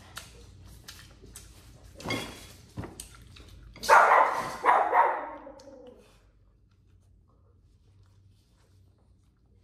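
A dog barking: a short bark about two seconds in, then a louder run of barks about four to five seconds in, the last one trailing off.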